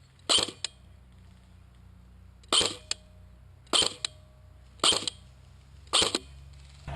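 Five single shots from an airsoft electric rifle (ICS M4 AEG), loud and close, spaced about one to two seconds apart, each with a short sharp report followed by a small click.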